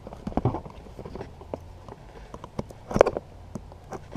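A cardboard mailing box being handled and worked open by hand: scattered taps, scrapes and rustles, with a sharper knock about three seconds in.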